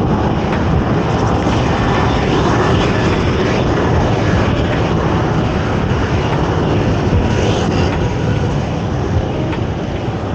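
Steady, loud rushing noise of riding a bicycle through city traffic: wind on the rider's camera microphone mixed with passing motor traffic.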